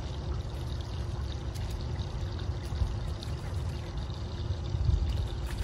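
Wind buffeting the microphone: an uneven low rumble and rush that rises and falls, with a faint steady hum underneath.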